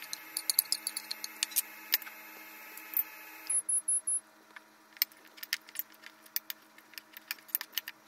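A tuna can and a metal spoon clinking and tapping against a ceramic ramekin in a string of sharp clicks. Under them is a steady hum that cuts off about three and a half seconds in.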